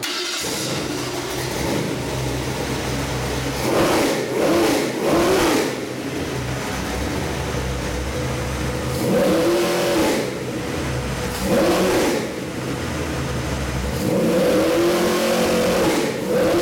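Ford 331 stroker small-block V8 with a Holley carburetor running on an engine run stand, idling between repeated throttle blips, each a quick rise and fall in revs, with one longer rev held near the end.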